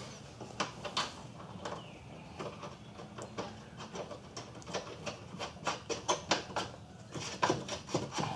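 Nut being tightened onto the fuel tank shield's U-bracket by hand tool: a run of short, irregular metal clicks and scrapes, a few a second.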